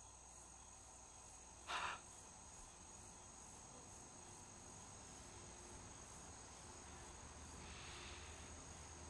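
Crickets chirping steadily in a quiet night ambience, a high, evenly pulsing trill. About two seconds in there is one brief, sharp noisy sound, and near the end a faint rush of noise.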